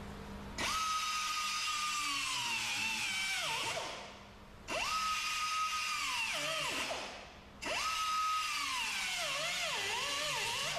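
Small air-powered grinder run three times against the steel of a car's quarter panel: each run starts as a high steady whine, then drops and wavers in pitch as the disc bites into the metal, before shutting off.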